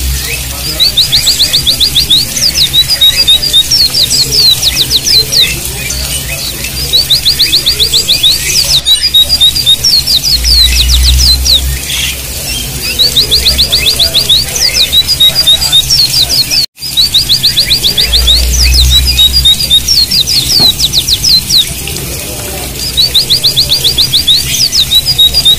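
White-eyes (pleci) singing: quick runs of high, sharp notes in short phrases repeated every few seconds, over a steady hiss of running water. The sound cuts out for an instant about two-thirds of the way through.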